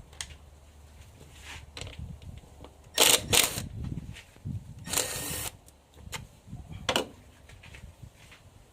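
Hand tools and engine-bay parts being handled during disassembly. There are two sharp clacks about three seconds in, a brief half-second rasp around five seconds, and another clack near seven seconds.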